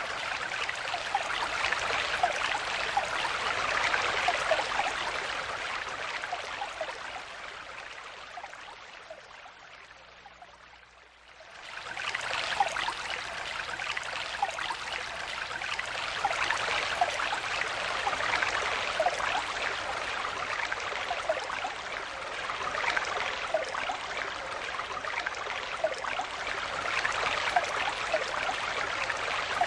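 Small stream flowing steadily with little trickling gurgles. The water sound fades gradually for several seconds, drops to faint about a third of the way in, then cuts back in suddenly at full strength.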